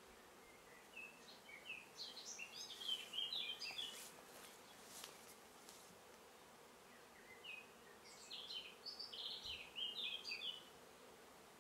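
Faint steady hum of honeybees flying around an open top bar hive, with a songbird singing two quick phrases of high, jumping notes, one about a second in and one around the eighth second.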